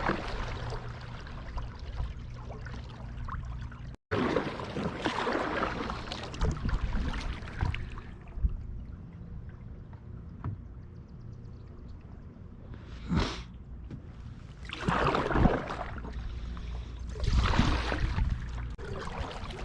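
Kayak paddle strokes in shallow water: the blade dipping and splashing in irregular bursts, with a quieter stretch in the middle and a short sharp splash partway through.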